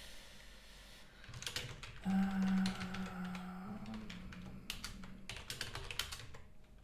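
Typing on a computer keyboard: a run of quick key clicks starting about a second and a half in. A steady low hum sounds alongside for about two seconds in the middle.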